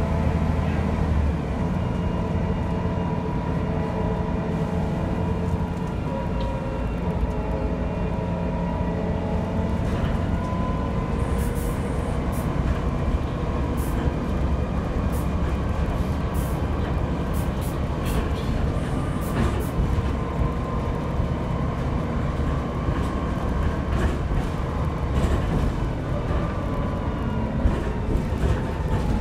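Bus in motion, heard from inside the passenger saloon: a steady low engine and road rumble with a drivetrain whine that drifts slightly in pitch, and scattered light rattles and clicks from the interior fittings.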